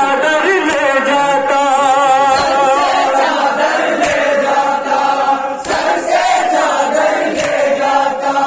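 Shia noha sung by a male reciter through a microphone, with a crowd of men chanting along in mourning. A few sharp slaps of hands striking chests in matam cut through the singing.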